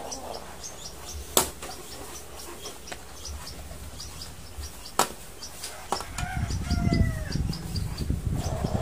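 A rooster crowing once, a single arching call of about a second, starting about six seconds in. Faint, high short chirps repeat throughout, and there are two sharp clicks of handling noise.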